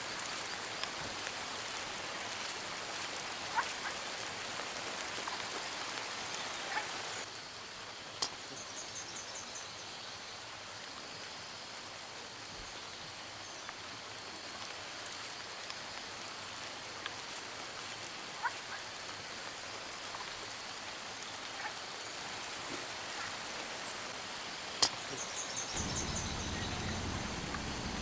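Steady hiss of rain over wet grassland and forest, with a few sharp ticks and short high trills. A low rumble comes in near the end.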